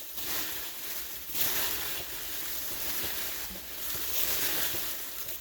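A steady rushing noise with no distinct clicks or tones, which stops abruptly near the end.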